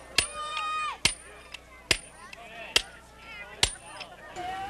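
Double jacking: a sledgehammer striking a hand-held steel drill into rock, five sharp ringing metallic strikes in a steady rhythm a little under a second apart. Voices call out between the strikes.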